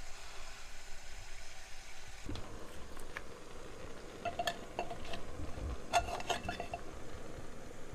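Oil sizzling softly under frying onion slices. Then a metal spoon clinks and scrapes against a saucepan and a plastic tub, with two short clusters of ringing clinks, about halfway through and again near three quarters.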